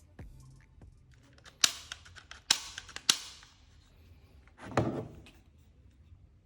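Toy ball-bullet pistol being fired: three sharp snaps in the first half, each ringing off briefly, then a duller knock a little later, with small clicks of handling in between.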